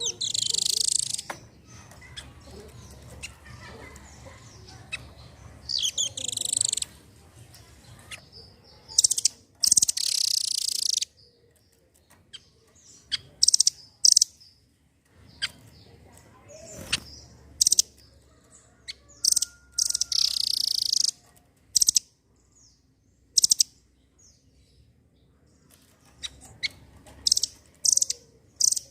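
Nuthatch calling: loud bursts of rapid high-pitched notes, each lasting up to about a second and a half, repeated a dozen or so times with irregular pauses between them.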